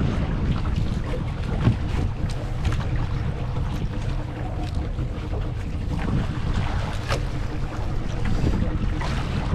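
Wind buffeting the microphone aboard a small outrigger boat, with the boat's motor running steadily underneath. Scattered sharp clicks and knocks come through, louder at about two seconds and again at about seven seconds.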